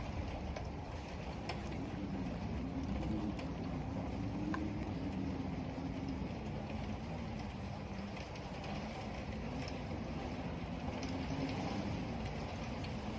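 Steady rush of wind and rain with scattered keyboard key clicks. A low wavering howl of wind comes up twice.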